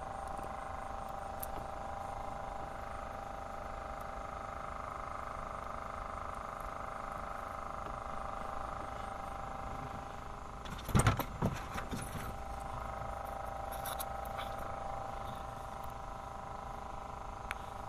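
An engine running at a steady pitch, with a short cluster of sharp knocks and rattles about eleven seconds in.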